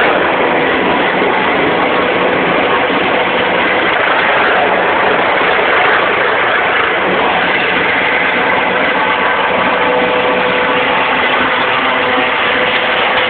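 Helicopter flying overhead: a loud, steady engine-and-rotor rush with a faint steady whine on top.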